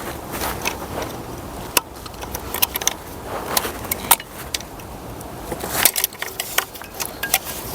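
Scattered sharp clicks and light rattles of plastic wiring connectors and harness being handled and unplugged on a Mercedes V12 engine.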